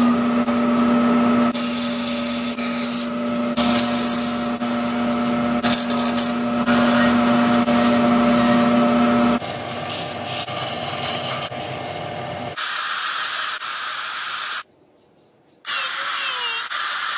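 Bandsaw running with a steady hum while cutting a wooden spoon blank. About nine seconds in, the sound changes to a higher, hissier whir, and near the end a small handheld rotary tool sands the inside of the spoon bowl.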